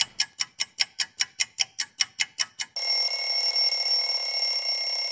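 Rapid even ticking, about six ticks a second, as a timer counts down. Then, just under three seconds in, a continuous alarm bell starts ringing as the timer reaches zero.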